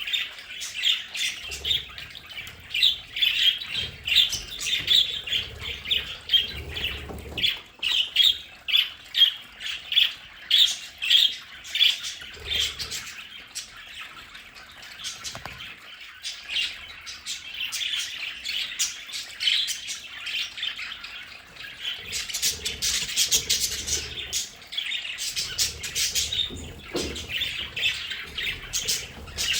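A flock of budgerigars chattering, a dense run of quick overlapping chirps and squawks that thins out briefly a few times.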